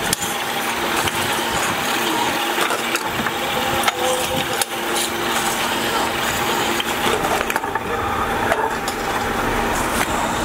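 Belt-driven roller seaming machine running, its steel rollers spinning against the rim of a steel oil-filter can to roll the seam closed. A steady mechanical hum with a few sharp clicks near the middle.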